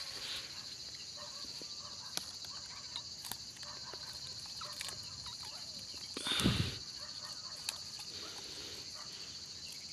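A steady, high chirring of crickets in the night. There are scattered small clicks and rustles, and one brief louder rustle or thump about six and a half seconds in.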